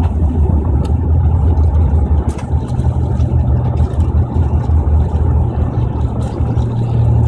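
Cabin noise of a Boeing 767-400ER rolling on the ground just after landing: a loud, steady low rumble of engines and wheels, with a steady hum joining about two and a half seconds in and a few light clicks.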